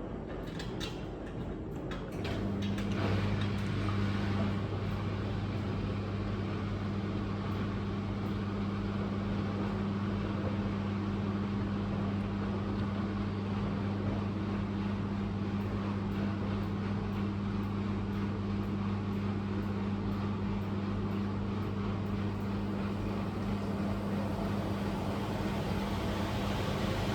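A Miele Professional laundry machine's motor starts about two seconds in and runs at a steady speed, giving an even low hum over a rushing noise.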